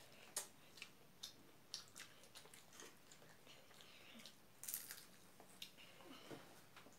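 Faint close-up eating sounds: chewing and wet mouth clicks as rice is eaten by hand, in a string of short irregular clicks with a louder cluster about two-thirds of the way through.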